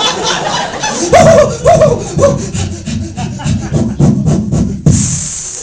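Mouth-made sound effects from a performer: a quick run of rhythmic rasping strokes, about five a second, with three short rising-and-falling whines about a second in.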